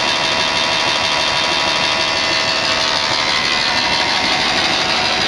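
GE Oil & Gas 4HB/3 reciprocating condensate stabilisation compressor (four cylinders, three stages, electric-motor driven) running: a loud, steady mechanical din with many steady whining tones through it.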